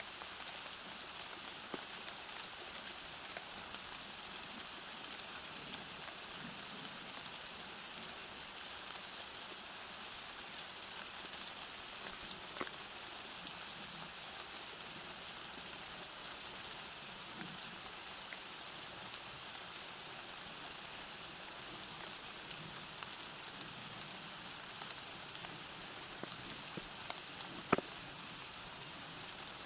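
Steady rain falling, a constant hiss with scattered individual drop taps; one sharper tap stands out near the end.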